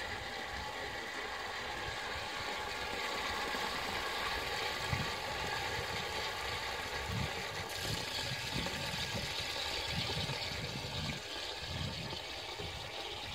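Cast-iron high-level cistern refilling after a test flush: a steady hiss of water running in through its inlet valve, which grows brighter about eight seconds in. An uneven low rumble sits beneath it.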